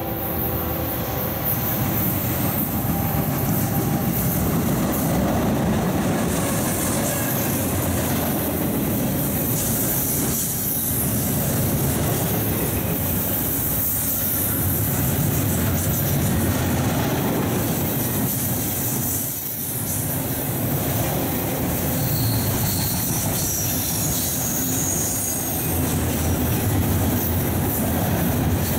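Norfolk Southern double-stack intermodal freight train passing close at speed: a steady, loud rumble and clatter of steel wheels on rail. A chord of steady tones, the locomotive horn's last note, ends about a second in.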